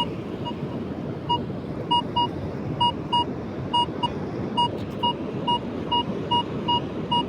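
Metal detector giving a target signal: short beeps of one pitch repeating about twice a second over a steady rushing background, the sound it makes over buried heavy metal.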